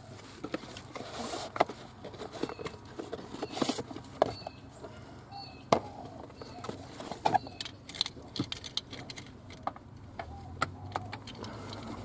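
Boost gauge kit being unpacked by hand: irregular rustling of packaging with many sharp clicks and taps as parts are lifted out and handled.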